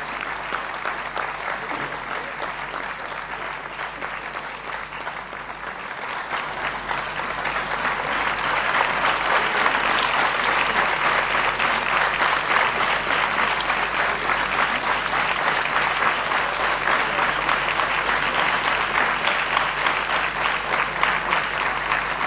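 Audience applauding at length, the clapping swelling louder about seven seconds in and then holding steady.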